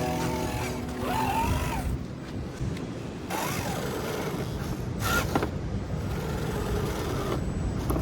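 Axial SCX10 III Deadbolt RC crawler's electric motor and drivetrain whining under throttle, the pitch rising and falling a couple of times as it speeds up and slows, over a steady background hiss.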